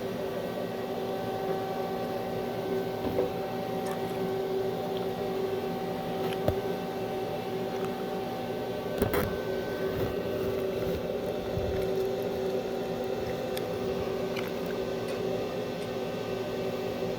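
Stick (shielded metal arc) welding on steel flat bar: a steady electrical buzz and hiss with a few sharp pops.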